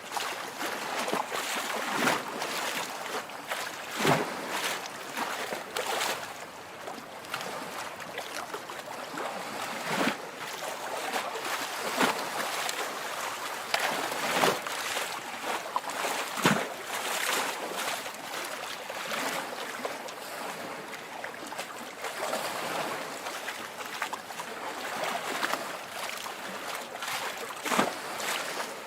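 Small lake waves lapping and splashing at the water's edge: a steady wash of water with a sharper slap every couple of seconds.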